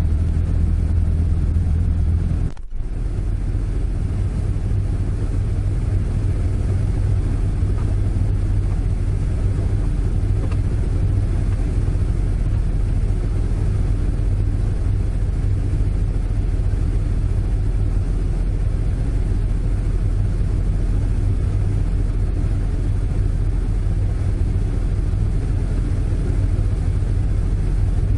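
Toyota AE86's five-valve 4A-G engine idling steadily, heard from inside the cabin, with a brief drop-out about two and a half seconds in.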